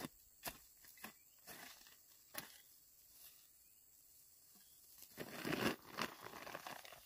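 A hoe knocking into dry soil a few times, then, from about five seconds in, the crinkling rustle of a plastic fertilizer sack being picked up and handled.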